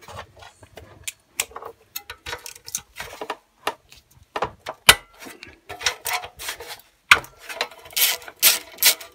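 Hand ratchet clicking in short irregular runs, with metal clinks of the tool on the bolt heads, as bolts are undone on a small engine. The clicks bunch up louder about eight seconds in.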